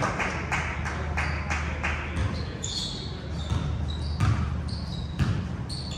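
Basketball dribbled on a hardwood gym floor: repeated bounces about three a second, echoing in the gym. Short high sneaker squeaks come in over the second half, over a steady low ventilation hum.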